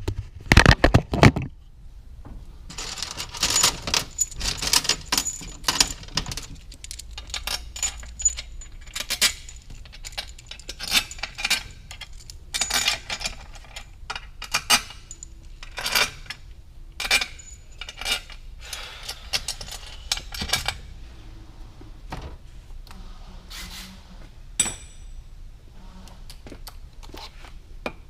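Metal parts clinking and clattering in irregular clusters: bolts, tools and the differential being handled against an aluminium transmission case as the case halves are fitted together for bolting. The clinks come thick for most of the time and thin out after about twenty seconds.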